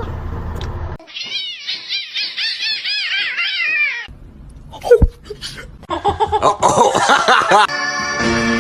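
A cat meowing: a rapid run of short, high-pitched mews for about three seconds, then, after a brief pause and a thump, a series of lower, drawn-out meows. Music starts near the end.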